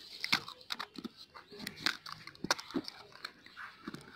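Hands handling a cardboard box: irregular clicks, taps and scrapes as fingers grip and work the lid open.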